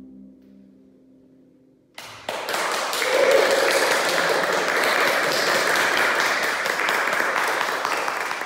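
The last notes of a concert harp ring out and fade, then about two seconds in an audience breaks into steady applause.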